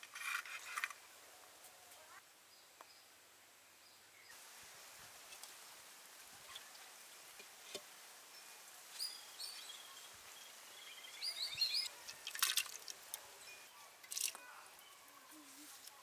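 Brief clatters and scrapes of cooking utensils and clay pots, the loudest about three-quarters of the way through, with a few short, high bird chirps around the middle over a quiet outdoor background.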